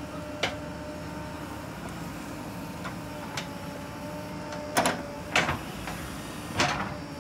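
JCB 3DX backhoe loader running steadily with a thin whine while digging and loading dirt. A light knock comes about half a second in, then three loud, sharp knocks in the last two and a half seconds.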